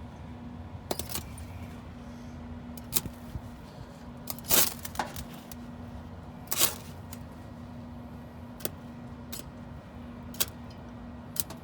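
Arc welder on a car muffler: a steady electrical hum with short, sharp crackling strikes of the arc every second or two, two longer sizzling bursts around the middle.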